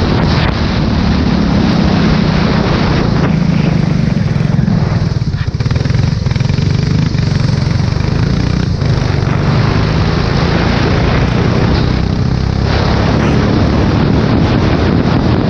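A Formula 4 race car's engine running at speed, heard onboard with wind rushing over the microphone. About a third of the way in the engine note eases and the noise thins, then it builds back up near the end.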